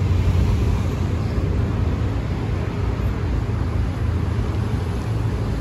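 A steady low engine hum, holding level throughout, that starts abruptly at the beginning.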